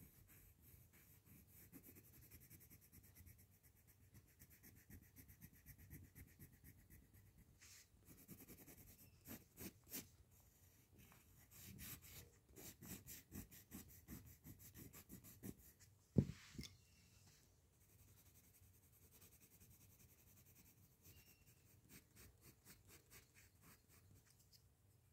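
Colour pencil scratching faintly on paper in quick back-and-forth shading strokes, with one sharp tap about two-thirds of the way through.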